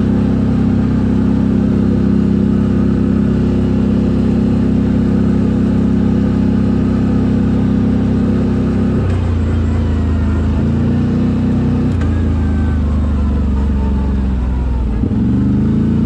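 CFMoto CForce 1000 ATV's V-twin engine through an aftermarket Akrapovic exhaust, held at steady high revs under way. About nine seconds in the engine note drops to lower revs, and it revs up again near the end.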